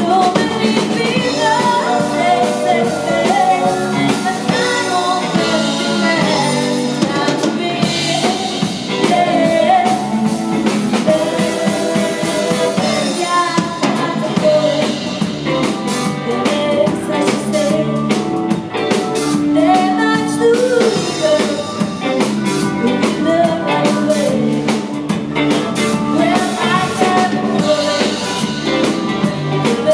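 Live rock band playing a song: drum kit, electric guitar and keyboard, with a singer's vocals over them.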